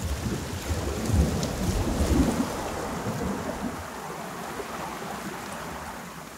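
Ocean surf on a beach: a low rumble of breaking waves through the first two seconds or so, then a steady wash.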